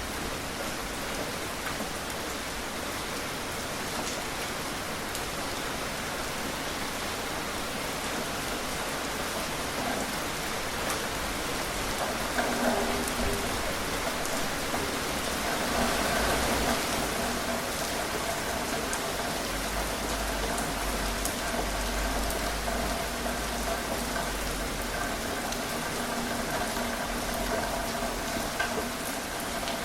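Steady rain falling and pattering on surfaces, with scattered individual drops. A faint steady hum joins about halfway through.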